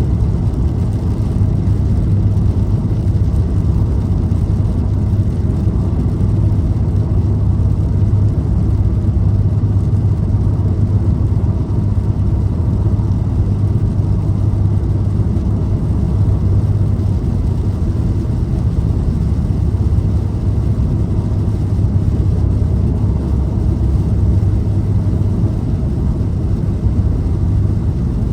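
Car cruising at steady speed: a constant low rumble of tyre, road and engine noise, with no change in pace.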